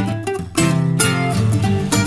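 Instrumental music on picked string instruments: a quick run of plucked notes over a steady bass line.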